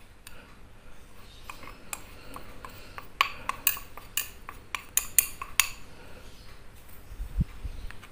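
Metal spoon clinking and scraping against a glass bowl while flour is emptied out onto a plastic tray. A quick run of sharp clinks comes in the middle, and a dull knock near the end.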